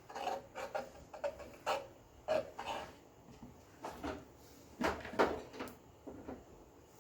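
Irregular light knocks and clacks from a plastic cutting board and crate being handled and set in place during gluing, loudest about five seconds in.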